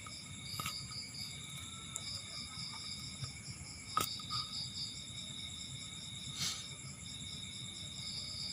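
Insects, crickets by their sound, chirping in a steady high pulsing trill, with a few sharp clicks and knocks, the loudest about four seconds in.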